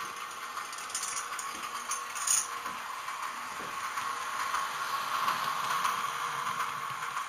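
JECO model SJ Hg electric locomotive running along model railway track, a steady rattling whir that grows louder as it passes close by, with one sharp click a little over two seconds in.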